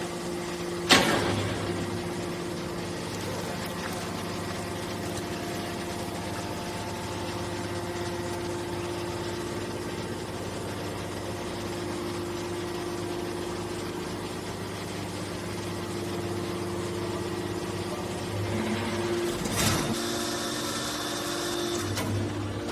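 Hydraulic aluminium-can baler running, its motor and pump giving a steady hum. A sharp knock comes about a second in, and a short hissing rush comes near the end.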